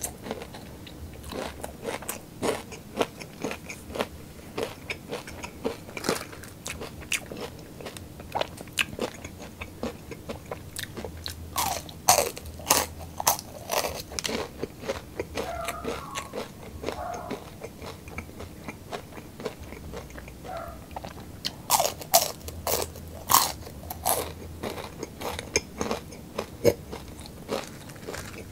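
Person chewing and crunching crispy fried snacks such as french fries, a string of sharp bites and chews with two runs of louder crunches, about halfway through and again later on.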